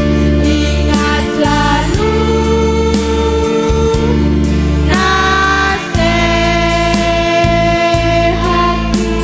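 Girls' choir singing long held notes to electronic keyboard accompaniment.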